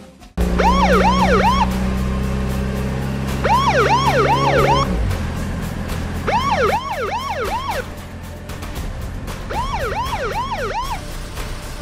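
Police car siren sounding in four short bursts of fast up-and-down yelps, each burst about a second and a half long with a pause between, over a low steady drone during the first five seconds.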